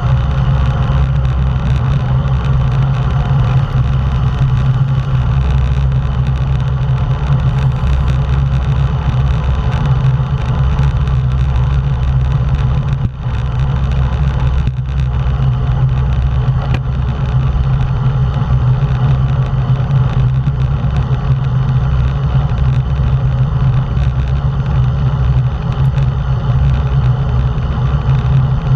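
Wind rushing over the microphone of a bike-mounted action camera at racing speed: a loud, steady low rumble.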